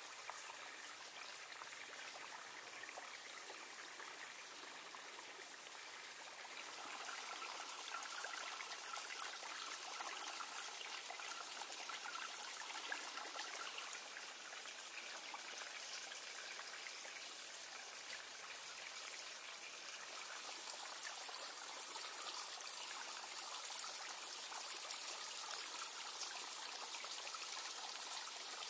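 Water of a mountain spring running and splashing in a steady rush, a little louder for stretches in the middle and near the end.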